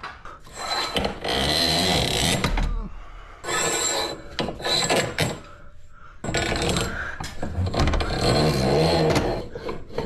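Rasping metal-on-metal scrapes in three long strokes as a garage door torsion spring is worked by hand along its steel shaft.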